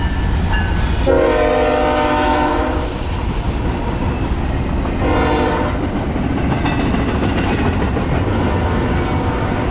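Freight train locomotive horn blowing a long blast about a second in, then a short blast a few seconds later, over the steady rumble and wheel clatter of the passing train.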